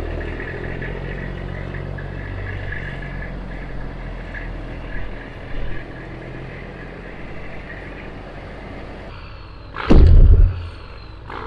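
Heavy diesel engine running steadily in deep snow. About ten seconds in, a short, loud rush of noise cuts across it.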